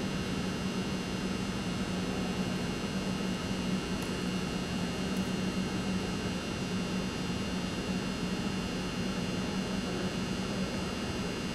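Steady background hum and hiss of a large indoor arena, with no distinct event.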